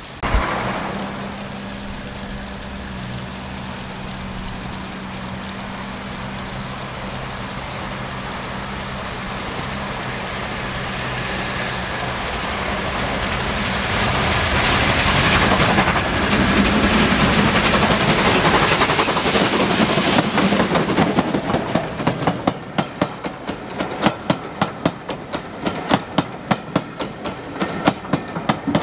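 A steam locomotive hauling a passenger train approaches and passes close by. After a low steady drone, a loud rush of the passing engine builds up and is loudest about halfway through. After that comes the clickety-clack of the carriage wheels over the rail joints, a couple of sharp clicks a second.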